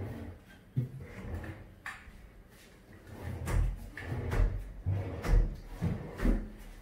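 MDF kitchen cabinet drawers being slid open and pushed shut one after another, with a string of knocks and thuds that are loudest in the second half.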